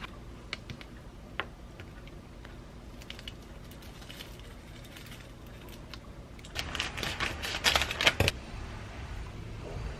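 Light clicks and taps of granola and small toppings dropping into a ceramic bowl. Then, at about six and a half seconds, plastic packaging crinkles loudly for nearly two seconds.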